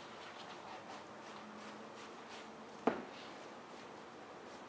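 A trigger spray bottle of soapy water is squirted once, about three seconds in, as a short sharp spritz. Between the squirts a clay bar rubs faintly over the wet paint of a car hood.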